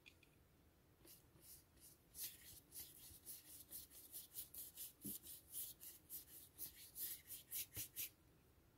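Paintbrush scrubbing watercolour paint back and forth across the painting surface: a faint run of short scratchy strokes, about three to four a second, starting about a second in and stopping shortly before the end.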